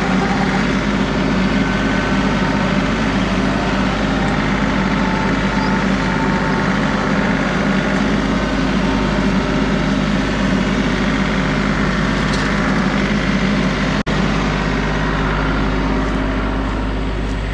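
John Deere 3038E compact tractor's three-cylinder diesel engine running steadily and loud, with a split-second cut-out once, about fourteen seconds in.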